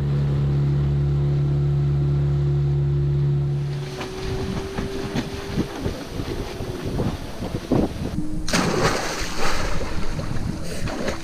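A steady low hum that stops about four seconds in, then water sounds and a loud splash of a person plunging into the sea, about eight and a half seconds in, with splashing after it.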